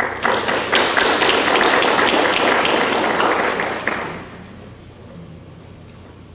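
Audience applauding for about four seconds, then dying away quickly.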